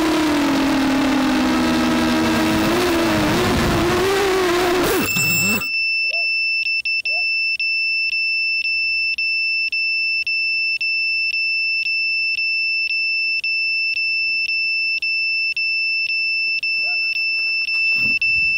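Walkera F210 racing quadcopter's motors and propellers whirring close to the onboard camera, the pitch falling as it comes down. About five seconds in it hits the grass and the motors stop. Then its buzzer sounds a steady high beep, broken by short gaps about twice a second.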